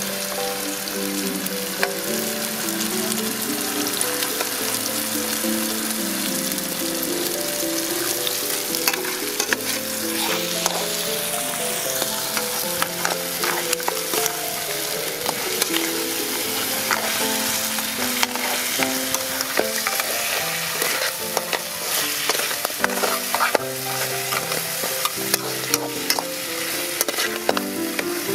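Crabs sizzling as they are stir-fried in a metal wok. A metal spatula scrapes and clicks against the pan, more often in the second half, over a soft tune of background music.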